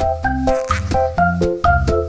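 Background music: an upbeat tune of short struck notes over a bass line, about four or five notes a second.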